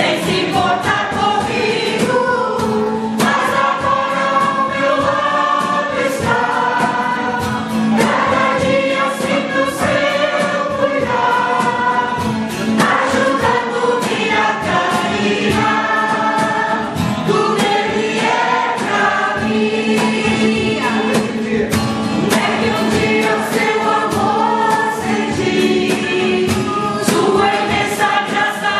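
A choir of men and women singing a hymn together, accompanied by strummed acoustic guitar.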